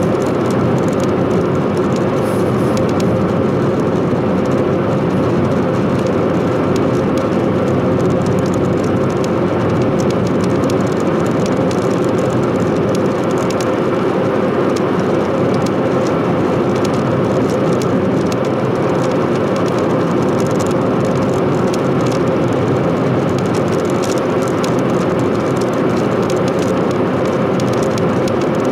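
Steady cabin noise of a Chevrolet Spark cruising on a highway: tyre and wind noise with the engine's drone underneath.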